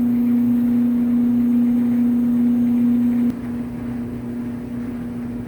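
Gas clothes dryer's motor running with a loud, steady hum while still cold, a quirk the owner says it has only in winter and that has never affected how it works. About three seconds in it cuts suddenly to the same dryer warmed up, running much quieter.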